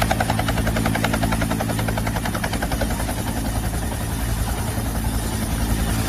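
A machine or engine running steadily, with a rapid, even pulsing beat over a low hum.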